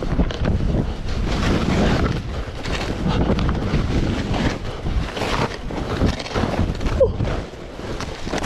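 Wind buffeting the microphone in gusts, a loud rumbling noise that swells and dips every second or so, with a brief falling squeak about seven seconds in.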